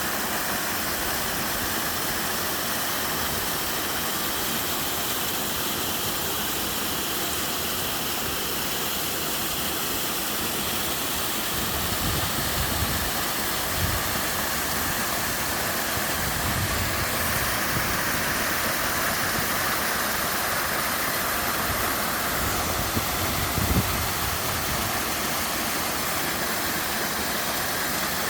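Waterfall: a steady, even rush of falling water, with a few brief low rumbles about halfway through and again near the end.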